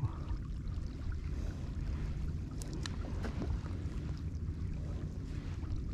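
Steady wind rumble on the microphone over water lapping at a kayak hull on open sea, with a few faint ticks near the middle.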